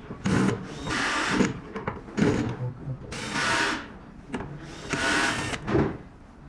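Power screwdriver backing out the screws that hold an IGBT board, in about four short runs with brief pauses between them.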